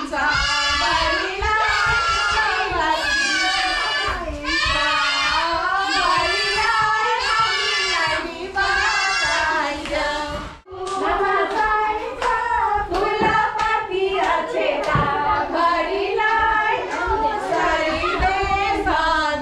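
Children singing together with hand clapping, the voices running on without pause; the sound breaks off for an instant about ten seconds in, then carries on.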